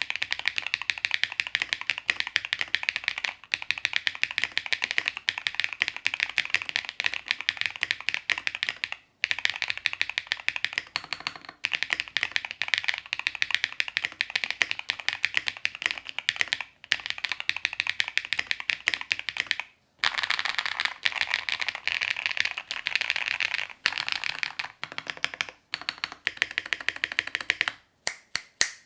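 Fast, continuous typing on a mechanical keyboard with Keygeek Ding Ding linear switches (ceramic-filled POM stems, P4 fiberglass-blend bottom housings). It gives dense, high-pitched, clacky keystrokes, with a few short pauses and a stop near the end.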